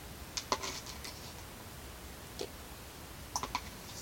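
Plastic measuring spoon clicking and tapping against plastic cups and containers while tablespoons are measured out. There is a quick cluster of clicks about half a second in, a single click around the middle, and another short cluster near the end.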